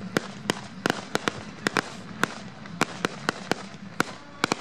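Aerial fireworks going off in a string of sharp, irregular pops and cracks, about three or four a second, over a steady background hiss.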